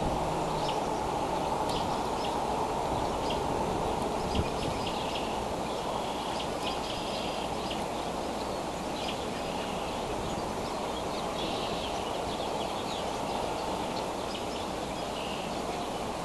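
Steady outdoor noise, like wind or distant rumble, with faint short chirps and ticks from birds scattered throughout.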